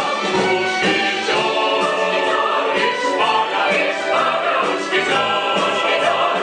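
Stage singers performing a musical-theatre number together, several voices with an orchestra accompanying.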